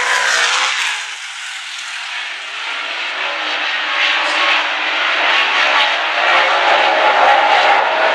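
A pack of dirt-track Late Model race cars with V8 engines running at speed around the oval, a dense engine drone that drops off about a second in and then builds back up as the cars come down the straight.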